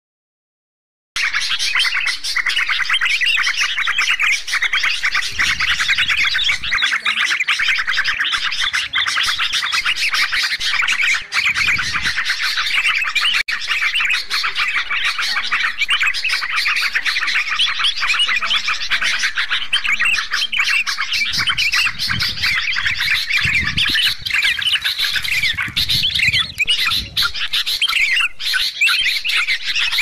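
Dense, continuous chorus of bulbuls chattering and calling over one another, yellow-vented bulbuls (trucuk) mixed with sooty-headed bulbuls (kutilang), starting about a second in; a bird-lure recording.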